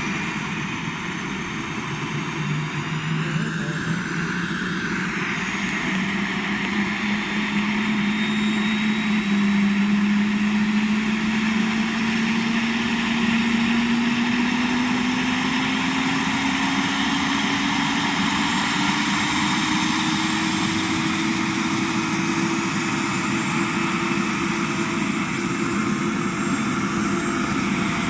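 Helicopter running up for takeoff: a steady engine noise whose hum climbs slowly in pitch as it spools up, with a high whine coming in near the end.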